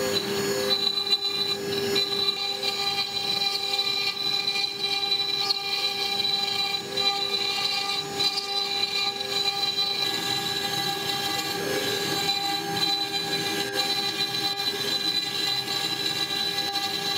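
CNC-6090 router milling sandstone: the spindle runs steadily while its cutter grinds into the stone under a coolant spray, giving a steady whine of several high tones over a rough grinding noise.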